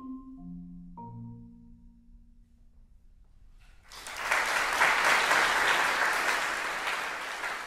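Concert marimba playing its last few notes, ending on a low chord about a second in that rings out and fades. About four seconds in, audience applause breaks out, the loudest sound here, slowly thinning near the end.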